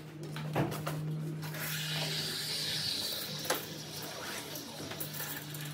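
Heavy canvas tent cover being dragged and rustling as it is pulled over a rooftop tent, with two sharp knocks, about half a second in and again about three and a half seconds in, over a steady low hum.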